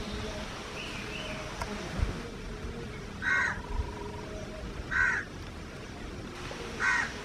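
A bird calling three times, each call short and harsh, about a second and a half to two seconds apart.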